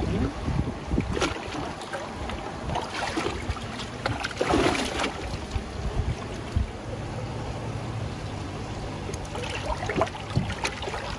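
Water sloshing and splashing in a plastic tub as a large Yamabuki koi is held and rolled over by hand, the fish stirring the water as it moves. The loudest splashes come about halfway through.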